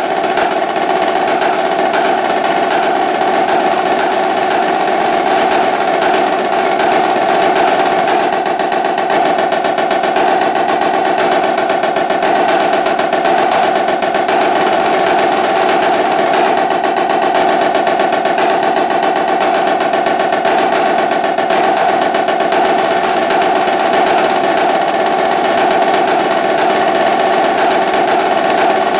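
Yamaha marching snare drum played in a fast rudimental solo: dense, unbroken sticking and rolls at a steady loudness.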